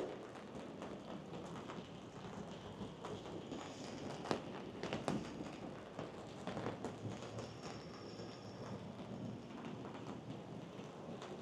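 Rain falling steadily in a heavy storm, with scattered sharp taps of drops striking a surface.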